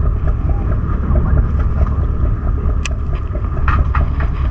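Steady low rumble of a boat engine running, with a sharp click about three seconds in.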